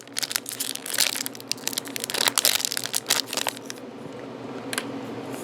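Plastic wrapper of a football trading-card hanger pack crinkling and crackling as it is handled and pulled open: a dense run of crackles that eases off shortly before the end, then a few more.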